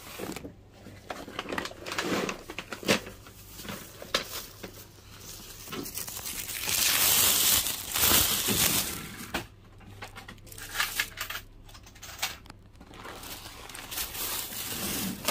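Plastic and paper bags crinkling and rustling as they are handled at the counter, in irregular scrapes. From about seven to nine seconds in a louder rubbing noise sounds, from skin rubbing over the microphone.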